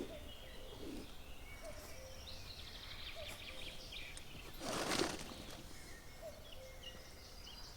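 Faint outdoor ambience with scattered small bird chirps, and a short burst of noise about five seconds in.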